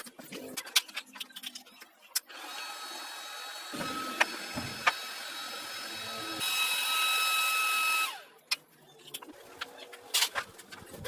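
A power tool's small motor runs with a steady whine for about five seconds, speeds up and gets louder about six and a half seconds in, then winds down with a falling pitch about eight seconds in. Metal clicks and taps of tools being handled come before and after it.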